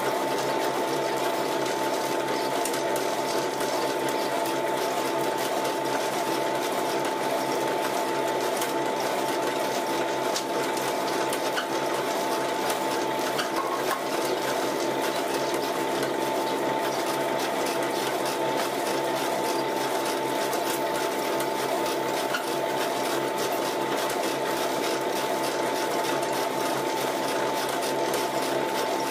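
Homemade sawdust pellet mill running steadily under load: a constant mechanical hum with a steady tone, over a fast, unbroken patter of small clicks as pressed pellets drop from the chute into a metal wheelbarrow.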